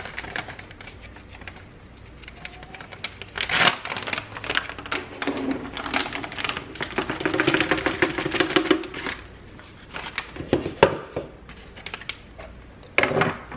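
A bag of flour crinkling and rustling as it is opened, with a steadier stretch in the middle as the flour is poured from it into a plastic canister, then more crinkling as the empty bag is handled.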